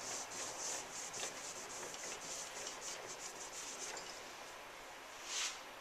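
A cloth rag rubbing wood stain onto a bare wooden crossbow stock in quick back-and-forth strokes, which stop about four seconds in. One more single swipe comes near the end.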